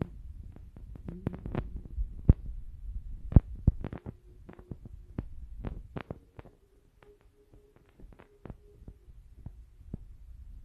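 Irregular taps and clicks of fast typing on a phone's touchscreen keyboard, a few a second, with the sharpest ones a little after two seconds and about three and a half seconds in, over a low rumble and a faint steady hum.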